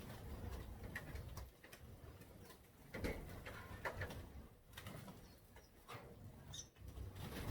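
Birds in the aviary calling softly, with a few light knocks and rustles of things being handled.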